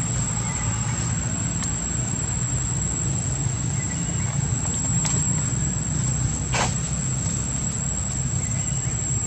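Insects trilling steadily on one high pitch over a low steady rumble, with one short sharp sound about six and a half seconds in.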